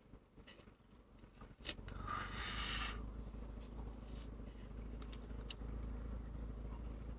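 Fiat Stilo 1.6 four-cylinder petrol engine at an unsteady idle, misfiring and hunting on its own; its low running sound climbs about a second and a half in and then holds. A short hiss and a few light clicks sit over it. The erratic idle is the sign of a faulty engine control unit, which the owner blames.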